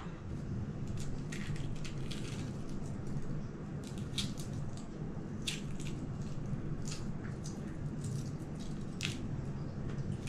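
Shells of hard-boiled eggs being cracked and peeled by hand: scattered small crackles and ticks over a steady low hum.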